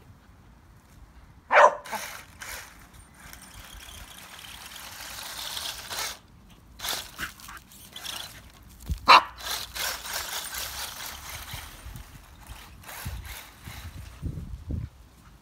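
Staffordshire bull terrier barking twice, loudly, about a second and a half in and again about nine seconds in. Between the barks comes the whine of the electric motor of a remote-control buggy driving over the grass.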